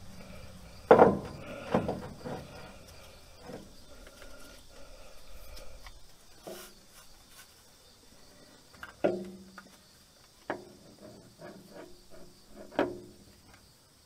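Hand tools and metal parts clinking and knocking against each other while a power steering pump and its gasket are fitted. The clinks are scattered and sharp, the loudest about a second in, and a few carry a brief metallic ring.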